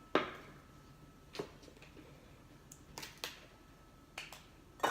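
Light clicks and knocks of kitchen things being handled, about seven short sharp strikes scattered irregularly, two of them in quick pairs.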